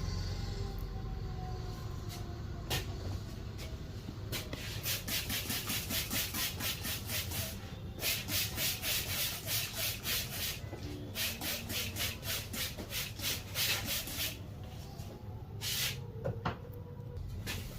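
Hands rubbing briskly over skin and hair during a massage, about four or five strokes a second, in several runs of a few seconds each.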